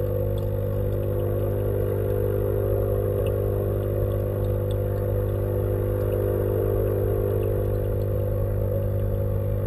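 Steady electric hum of the tank's pump, a strong low drone with higher overtones, heard from underwater in the fish tank, with faint scattered ticks.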